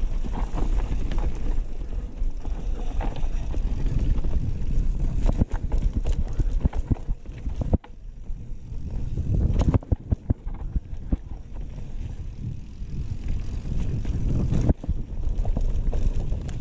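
Mountain bike descending a rough dirt trail: wind buffets the microphone and the tyres rumble over dirt and loose rocks, with frequent sharp clacks and rattles as the bike bounces. The sound drops out abruptly for a moment twice.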